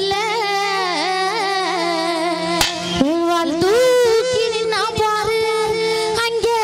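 A woman singing a Tamil folk song into a microphone, holding long high notes with a wavering vibrato, over a steady low hum. A single sharp click comes about two and a half seconds in.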